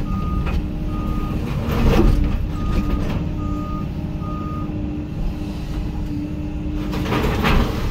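Hyundai HX220AL excavator's travel alarm beeping in short, evenly spaced beeps with pauses between groups, over the machine's running diesel engine. Two loud impacts break in, about two seconds in and again near the end.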